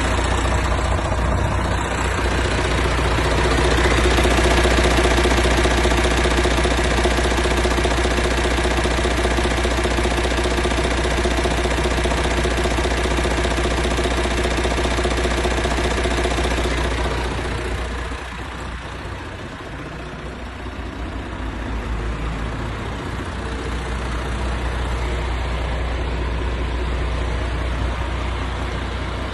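MAN TGX 18.500's 12.4-litre straight-six diesel engine running steadily at idle, swelling a little about four seconds in. About two-thirds of the way through the sound turns softer and duller, then settles into the same steady idle.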